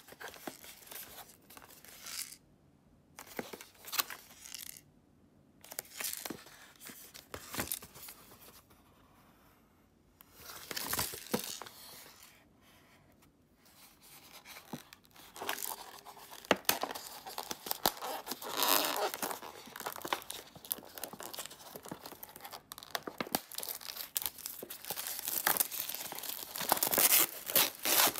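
Clear plastic shrink-wrap on an instant yakisoba cup crinkling as the cup is handled, then tearing and being peeled off. It comes in short scattered rustles at first, then denser and louder crinkling and tearing through the second half.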